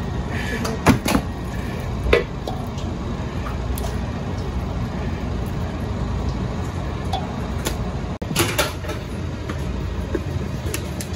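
A steady low rumble throughout, with a few sharp clatters of a utensil and food against a stainless-steel mixing bowl full of avocado halves: the loudest about a second in, another near two seconds, and a short cluster a little past eight seconds.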